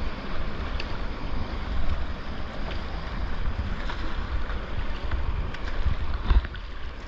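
Rushing whitewater heard from a kayak running a creek, with wind rumbling on the action camera's microphone and a few short, sharp splashes.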